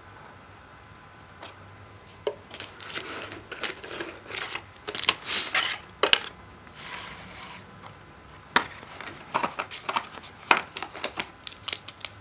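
A phone and its cardboard box being handled: plastic and cardboard rustling and crinkling with scattered clicks and taps, starting about two seconds in.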